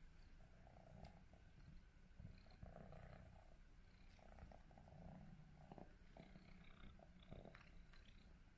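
A cat purring faintly, a soft low rumble that swells and fades with each breath, about once a second.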